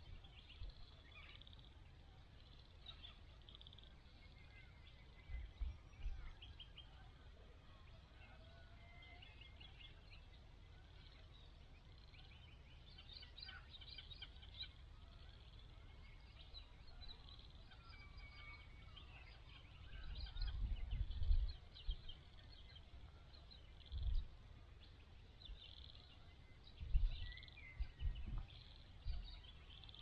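Several wild birds calling and chirping, with short trills and a few whistled notes. Gusts of wind rumble on the microphone several times, the strongest about two-thirds of the way through.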